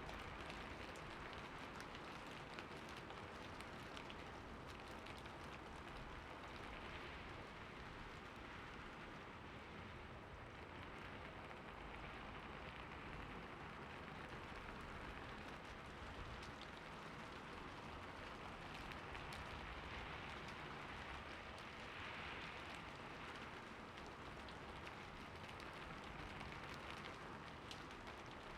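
Steady rain falling: a soft, even hiss with scattered fine drop ticks.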